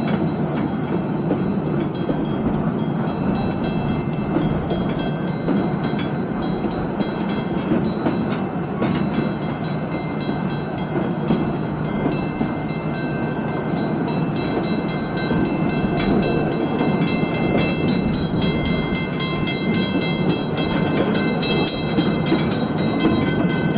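Narrow-gauge steam train running along its track as heard aboard: a steady rumble of wheels on rail with thin high-pitched tones coming and going. A fast clicking builds up over the second half.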